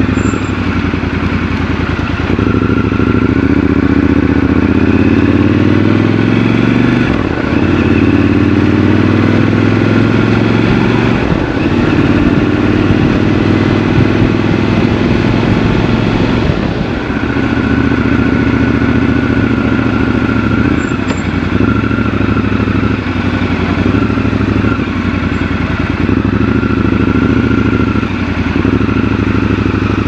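Triumph Scrambler 1200 XC's 1200 cc parallel-twin engine under way, pulling up through the gears with the pitch rising in each gear and dropping at each shift. It runs more steadily in the second half.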